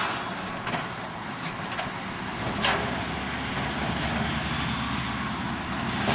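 Road traffic noise: a steady rumble of vehicles that grows a little fuller partway through, with a few light knocks in the first half.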